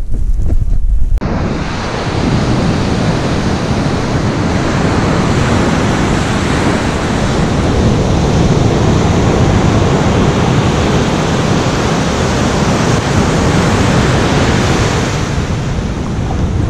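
Ocean surf breaking and washing up a sandy beach, a steady rush of waves with wind on the microphone. About a second in, a low wind rumble gives way suddenly to the full sound of the surf.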